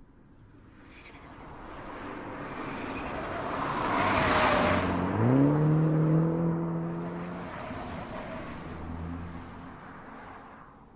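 MINI Cooper five-door hatchback passing by. The sound of its engine and tyres grows as it approaches. About five seconds in, the engine note climbs as it accelerates and then holds steady. The sound then fades as the car drives away.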